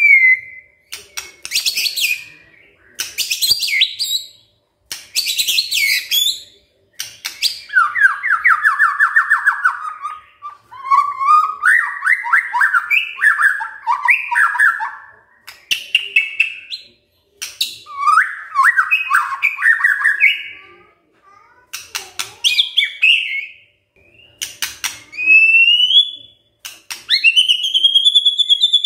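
White-rumped shama singing a loud, varied song in bursts: sharp high notes, long runs of fast rattling notes, and clear rising whistles near the end.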